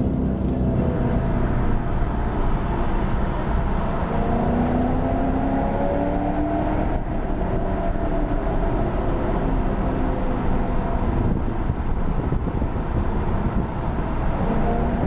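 Car engine running under load, its revs climbing and dropping several times over a steady road rumble.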